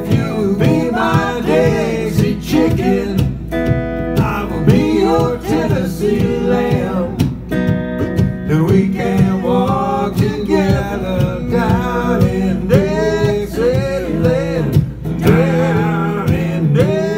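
Live acoustic string-band music: strummed acoustic guitar and other plucked strings, with a fiddle melody bending above them.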